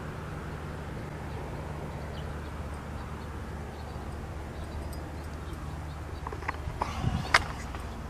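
Steady low hum of an engine running on a construction site, with a few short knocks near the end.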